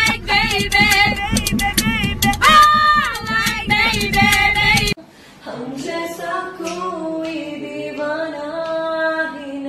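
Women singing unaccompanied with no instruments. About five seconds in it cuts abruptly from a group singing loudly, with many sharp ticks, to one woman singing alone, quieter and lower.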